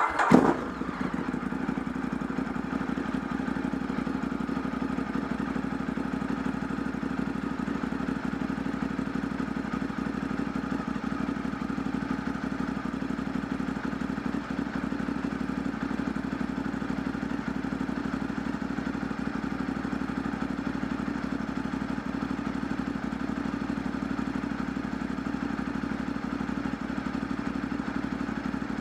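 2008 Ducati 848's L-twin engine running just after starting, with a short burst of revs right at the beginning, then idling steadily. It is the first start after an oil change, with the new oil still filling the empty oil filter.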